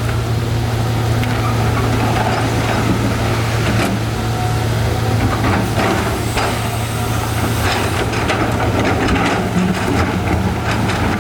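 Heavy excavator's diesel engine running steadily at a constant pitch, with scattered knocks and scrapes as rocks are moved.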